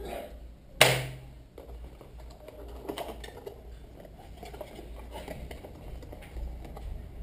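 A sharp knock about a second in, then hands handling cardboard packaging: light irregular tapping, clicking and rustling as the flaps of the small camera box are opened.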